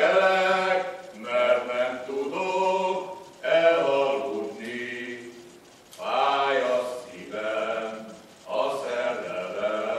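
Mixed choir of men and women singing a Hungarian folk song unaccompanied, in phrases of about two seconds with short breaks between them.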